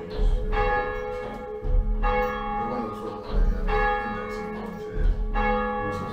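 A single church tower bell rung full circle by its rope, striking four times at a steady pace of roughly one stroke every second and three-quarters. Each stroke rings the same chord of overtones and dies away, with a low thud at the onset.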